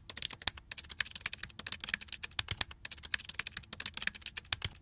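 Typing sound effect: a quick, uneven run of key clicks that goes with an on-screen question being typed out letter by letter.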